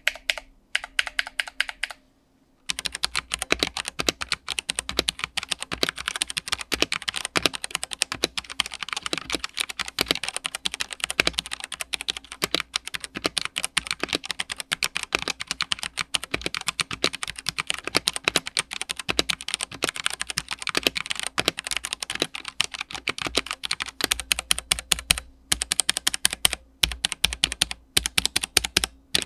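Fast typing on a Redragon K631 65% mechanical keyboard with stock Huano Red linear switches, a quick, dense run of key clacks. The board has no case foam or plate foam. After a short first burst comes a brief pause, then near-continuous typing with a couple of short breaks near the end.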